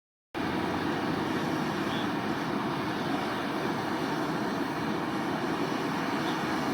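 A steady, loud rushing noise that starts abruptly and holds even throughout, with no distinct events in it.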